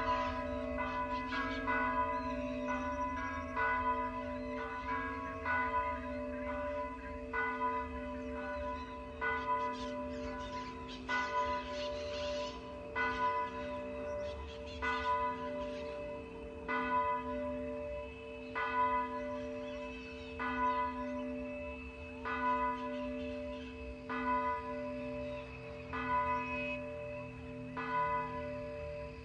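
Monastery church bell tolling. Quicker strokes in the first few seconds settle into an even stroke about every two seconds, and the bell's low hum rings on between strokes.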